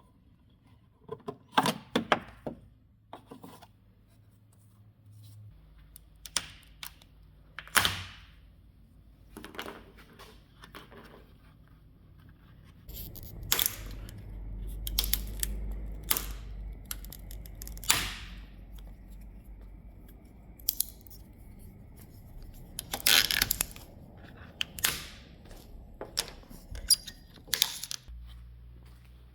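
Irregular hand-work noises: sharp clicks, knocks and short scraping or tearing strokes, with a low rumble underneath in the middle stretch.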